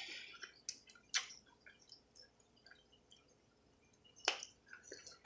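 Soft, wet clicks and smacks of someone eating close to the microphone, with a few sharper clicks about a second in and again after four seconds.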